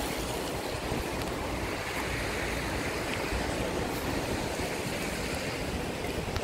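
Steady rushing noise with a choppy low rumble: wind buffeting the phone's microphone outdoors.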